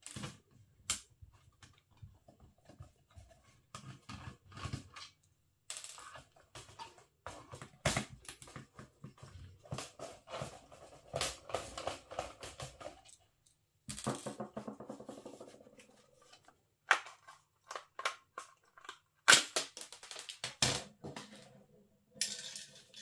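A small plastic fly zapper being taken apart by hand: irregular clicks, knocks and rattles of its plastic casing and parts, with two runs of rapid ticking in the middle.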